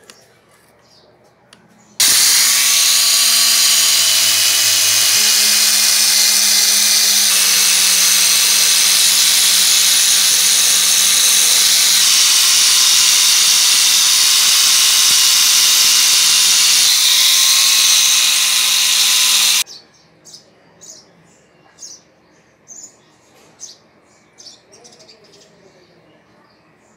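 Angle grinder fitted with a red non-woven abrasive polishing disc, running at full speed and buffing a metal hammer head. It starts suddenly about two seconds in and cuts off abruptly a little past the two-thirds mark, leaving only faint short chirps.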